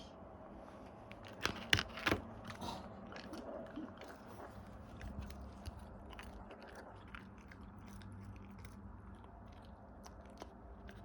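A dog crunching and chewing a homemade treat: a few loud crunches about a second and a half in, then lighter chewing clicks.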